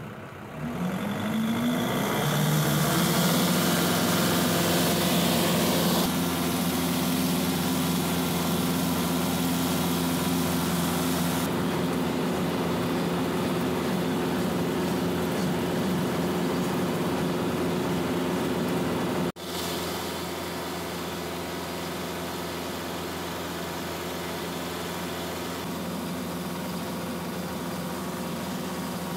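Compact tractor engine revving up to working speed over the first couple of seconds, then running steadily while it pulls a bush hog rotary cutter through tall grass. There is a brief break about two-thirds through, after which it carries on slightly quieter.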